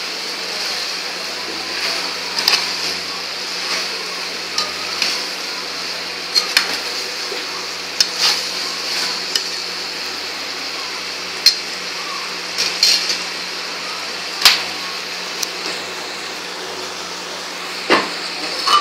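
Chili paneer sizzling in a stainless steel pan while a metal slotted spoon stirs it, clinking and scraping against the pan at irregular intervals. The clinks come every second or two, two of them louder near the end.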